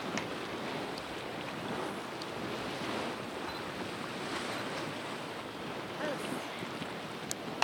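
Steady rushing, jet-like roar of the Churning Cauldron hot spring churning and venting, an even surf-like noise.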